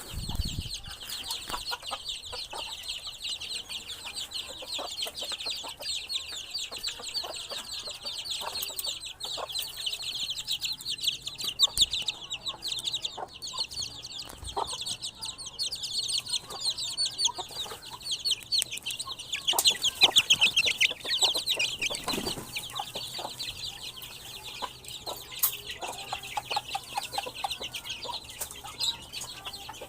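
Chickens clucking while they are fed, over a steady stream of rapid, high-pitched chirping, with scattered louder calls, the loudest about twelve seconds in and around twenty seconds in.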